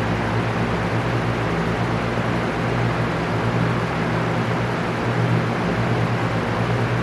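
Electric fan running steadily: an even rush of air with a low, constant motor hum beneath it.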